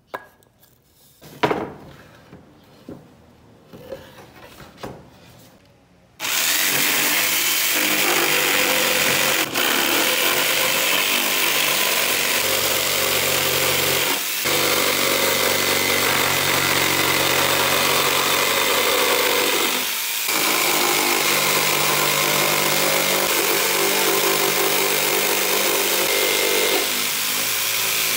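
A few knocks of wooden boards being handled, then about six seconds in an electric jigsaw starts and runs steadily, its blade cutting a curve through a wooden board, with two brief dips in the sound along the way.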